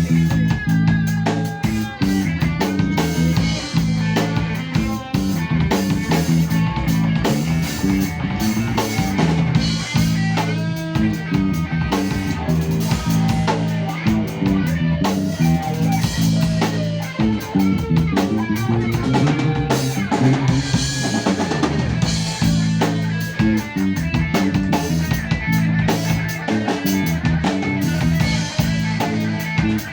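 A band playing a song on drum kit, bass and guitar, with a steady beat.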